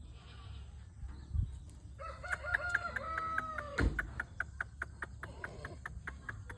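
A rooster crowing once, starting about two seconds in: a held call that bends down at the end. A low thump comes just after it, followed by a run of fast, even ticks.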